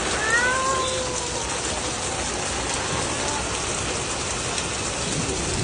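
Steady rain falling and splashing on surfaces in a storm. About a second in, a brief pitched sound rises and then eases off.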